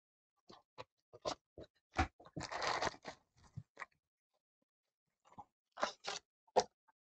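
Cardboard trading-card blaster box being pulled open and handled: scattered crackles and clicks, with a short tearing scrape about two and a half seconds in.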